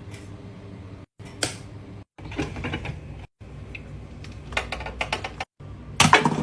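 Clicks and clatter from an automatic washing machine being handled, over a steady low hum. The sound breaks off abruptly several times between short clips, and the loudest clatter comes near the end.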